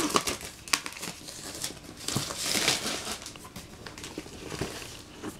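Clear plastic wrapping being torn and pulled off a cardboard box, crinkling and crackling in irregular sharp snaps, with a denser stretch of rustling about two seconds in.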